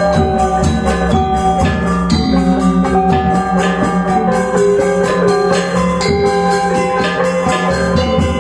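Balinese gamelan gong ensemble playing a tabuh pisan: bronze metallophones and gongs ringing in a steady stream of quick interlocking strokes.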